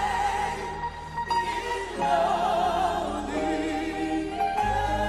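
Slow live worship music: long held melody notes with a wavering vibrato over a sustained keyboard pad and bass. A heavier bass note comes in near the end.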